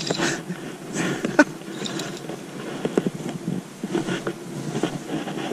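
Fly line being stripped in by hand and a knit sleeve rubbing close against the microphone while a small hooked trout is played: irregular scraping and rustling with scattered light clicks.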